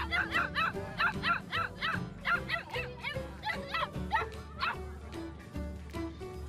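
A puppy yelping and whimpering in a quick run of short, high, rising-and-falling cries, about four a second, that stops a little before the end.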